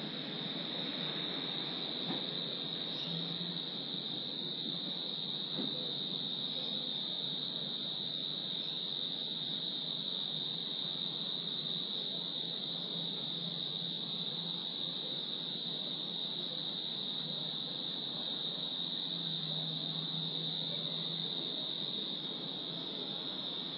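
Crickets trilling at dusk in one continuous, unbroken high-pitched drone, over a faint steady background hum.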